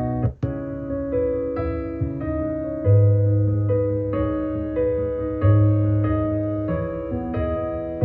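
Background piano music: a gentle melody of held notes over a steady low bass, with a brief dropout about half a second in.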